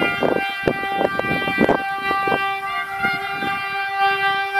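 Horn of an ECR Class 77 diesel-electric freight locomotive sounding one long blast of several notes at once, the chord shifting as a lower note comes in about two and a half seconds in. Sharp clicks sound through it.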